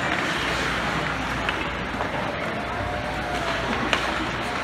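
Ice hockey rink ambience: a steady wash of arena noise with distant voices, and a couple of sharp clacks, one about two seconds in and a louder one near the end.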